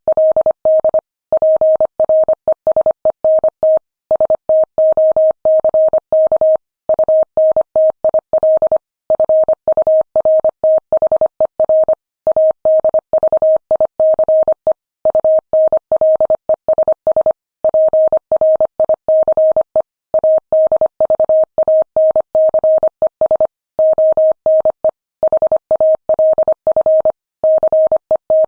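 Morse code tone keyed at 25 words per minute: a single steady pitch switched on and off in quick dots and dashes, with short pauses between letters and words.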